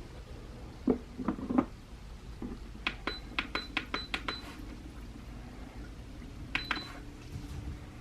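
A run of sharp clicks and light clinks, each of the later ones with a brief high ring: three clicks about a second in, a quick series of about seven a little later, and two more near the end.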